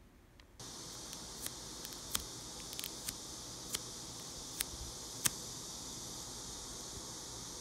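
Cling film over a tray of soft bread crinkling and clicking a few times as a finger presses on it, over a steady high hiss.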